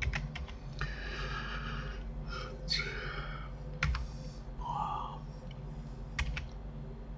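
Computer keyboard keys pressed now and then, a few short separate clicks, over a low steady hum.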